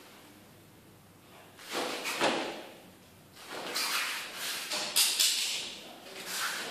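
Karate gi cloth snapping and rustling and bare feet moving on a padded mat during a Goju-ryu kata, in several short bursts with the sharpest about five seconds in.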